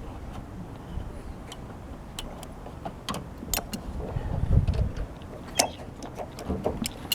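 Scattered sharp clicks and taps of work on a standing-seam metal roof, with a low rumble swelling about four to five seconds in.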